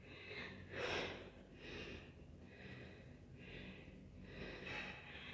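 A woman's heavy, quick panting close to the microphone, a little over one breath a second: she is out of breath from climbing many flights of stairs, her heartbeat pounding.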